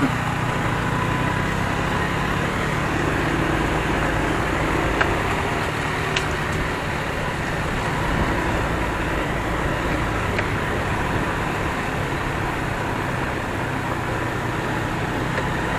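Honda PCX scooter's single-cylinder engine running steadily while riding along, mixed with steady road and wind noise.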